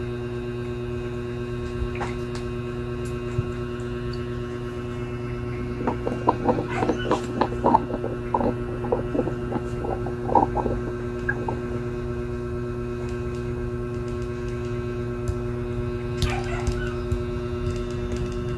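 Steady electrical mains hum, with a run of short, rapid animal-like calls about six to eleven seconds in.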